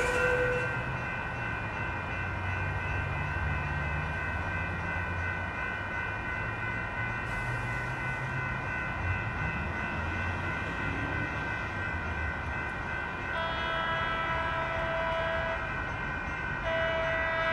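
Amtrak Pacific Surfliner train: the diesel locomotive's engine rumbles low through the first half, with a horn blast fading out just after the start. About 13 s in the horn sounds for about two seconds, and it sounds again near the end.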